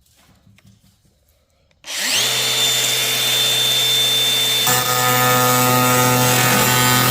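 A handheld grinder with a cutoff wheel switches on about two seconds in, spins up quickly and runs at a steady high whine. About three seconds later the wheel bites into the sheet steel and the sound turns harsher and grittier as it cuts.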